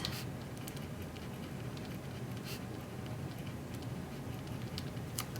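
Faint scratching of a pen writing on planner paper, a few light strokes over a steady low room hum.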